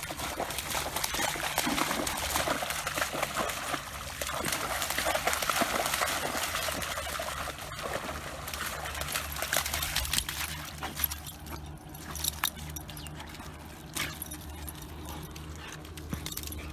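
Shallow lake water splashing and sloshing as a Labrador retriever wades through it, then quieter, with scattered clicks and knocks over the last few seconds as the dog steps out onto the stony bank.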